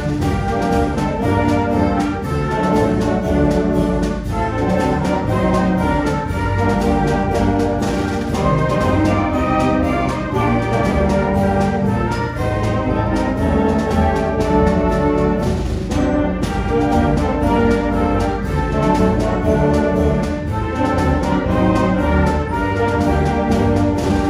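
Middle-school concert band playing without a break, brass chords with tubas and euphoniums sounding in the low end.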